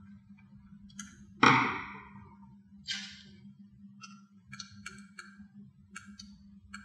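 Hard plastic housing of a plug-in dimmer being handled: a loud knock about one and a half seconds in, then a string of light plastic clicks and taps. A steady low hum runs underneath.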